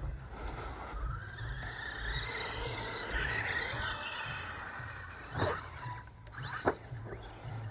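Brushless electric motor of a 4S RC monster truck, a 2650kV Rocket motor, whining from a distance as it is driven, its pitch rising and falling with the throttle. Near the end come two short sharp sounds about a second apart.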